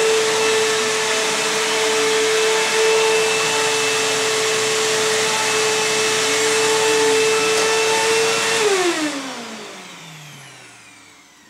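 Upright vacuum cleaner running steadily on carpet. About three-quarters of the way in it is switched off, and the motor's tone falls in pitch and fades as it spins down.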